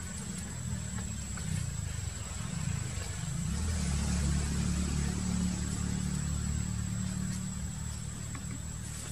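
Low motor-vehicle engine rumble that swells about three and a half seconds in and eases off near the end, like a vehicle running or passing nearby.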